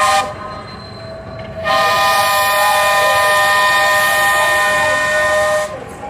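Horn of Porter No. 4, a converted diesel-hydraulic locomotive, sounding a short blast and then, about two seconds in, a long steady blast of about four seconds, a chord of several tones, as the train approaches a grade crossing.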